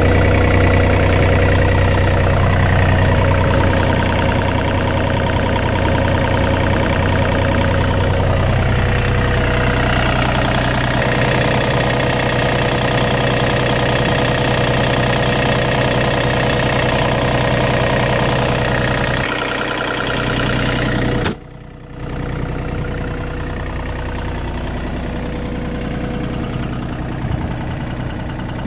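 John Deere 35D mini excavator's Yanmar three-cylinder diesel engine idling steadily. About two-thirds of the way through the sound cuts out for a moment and comes back quieter.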